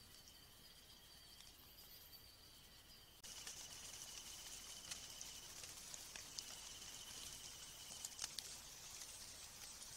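Faint night insect chorus of steady, high-pitched trills. About three seconds in it changes abruptly to a louder, higher insect hiss with a steady trill beneath it, and a few faint clicks sound near the middle and near the end.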